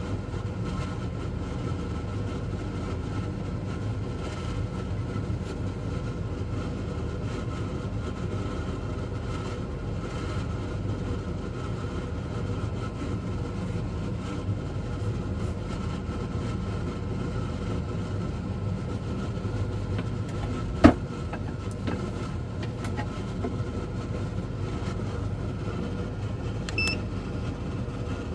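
12V under-bunk air conditioner running flat out on boost: a steady, noisy hum of its compressor and fan. A sharp click comes about 21 seconds in, and two short high beeps come near the end.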